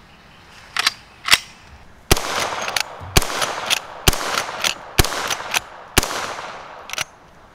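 Winchester 1866 'Yellow Boy' lever-action rifle firing five shots about a second apart, each followed by a short echo, with the clicks of the lever being worked between shots. Two sharp clicks come before the first shot.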